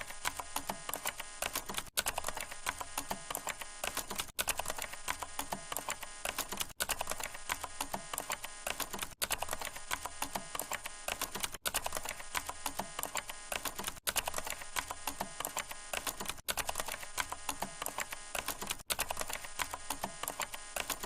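Rapid clatter of sharp clicks, a short sound-effect clip looped about every two and a half seconds with a brief gap at each repeat.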